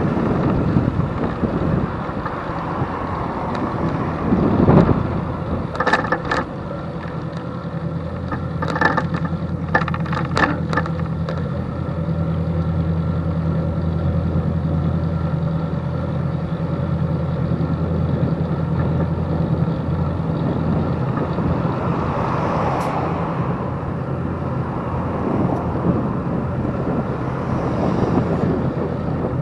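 Wind noise on a bicycle-mounted microphone with road traffic, including a vehicle engine's steady low hum for a stretch in the middle, and a few sharp clicks.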